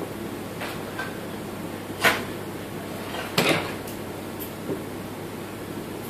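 Two sharp clacks about a second and a half apart, soft-tip darts striking an electronic dartboard, over a low steady background hum.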